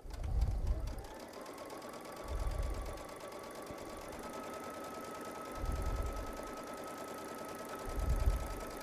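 Baby Lock Solaris sewing machine stitching a quarter-inch seam through quilt cotton: a fast, even run of needle strokes with a motor whine that climbs as it gets up to speed and steps higher about four seconds in. Four dull low thuds come every two to three seconds.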